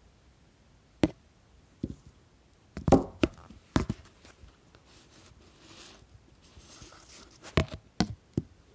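A scattered series of sharp knocks and taps on a hard surface, several close together about three seconds in and again near the end, with a soft rustle in between.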